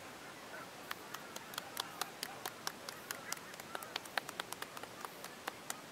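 Rapid, irregular sharp clicks, about five a second, starting about a second in, over faint background voices.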